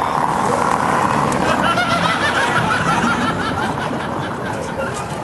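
High-pitched laughter in quick repeated bursts, strongest from about a second and a half in, over steady street traffic noise.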